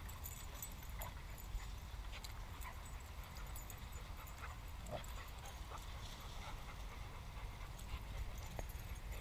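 Dogs playing close by: scattered pawsteps and scuffling on dry leaf litter, with a brief dog whine about five seconds in, over a steady low rumble.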